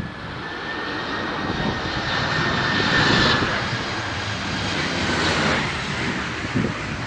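Boeing 737-700 jet engines (CFM56-7B turbofans) during a landing pass: a rushing roar with a high whine. It swells to its loudest about three seconds in, then eases.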